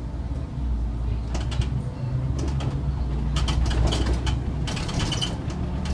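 Interior of a SOR NB city bus under way: a steady low engine hum, with a run of sharp clicks and a few short high chirps from about one and a half seconds in.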